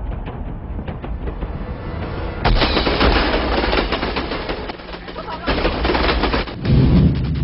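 Film action soundtrack: light rhythmic clicking, then about two and a half seconds in a sudden loud burst of rapid clattering that carries on, mixed with a little music.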